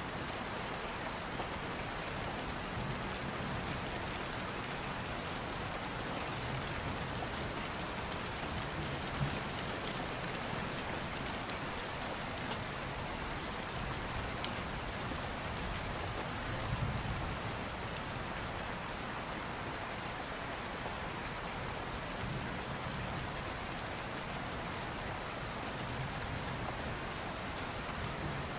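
Steady rain, an even hiss of falling drops, with a few light clicks about nine, fourteen and seventeen seconds in.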